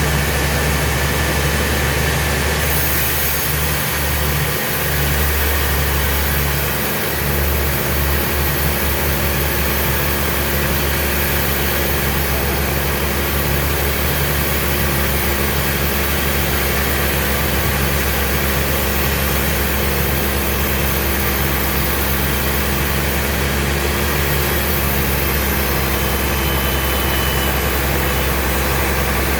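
Sawmill machinery running steadily: a constant, loud low hum that briefly dips a couple of times near the start.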